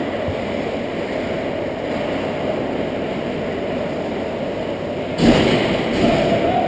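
Steady, muffled rumble of an indoor ice rink. About five seconds in, a louder scraping rush of ice-hockey skates cutting across the ice near the net swells and then rises again.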